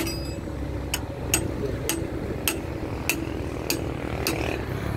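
Hammer striking steel in a steady rhythm, about one blow every 0.6 seconds, each with a short metallic ring, over a diesel excavator engine idling.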